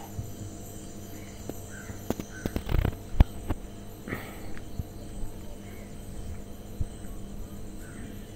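A crow cawing once, about four seconds in, over a cluster of sharp knocks and taps a little before it.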